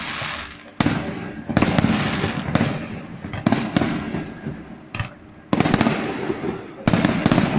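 Fireworks display: aerial shells bursting in quick succession, a sharp bang roughly every second, each trailing off in a long rumbling echo.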